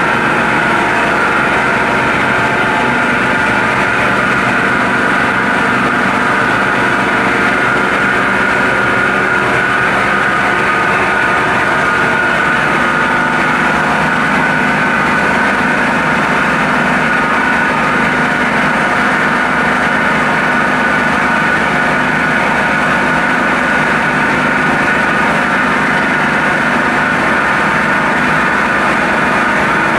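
Micro-hydro plant's water turbine and generator running steadily: a loud, even machine hum with a steady high whine over it.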